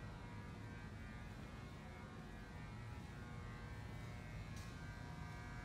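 Low, steady electrical hum and room tone of a garage workshop, with a short hiss about four and a half seconds in.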